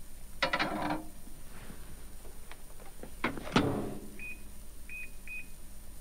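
A Sharp microwave oven being loaded and set: a dish clatters inside about half a second in, the door shuts with a double clunk about three seconds in, then the touch keypad gives three short high beeps as buttons are pressed to set the cooking.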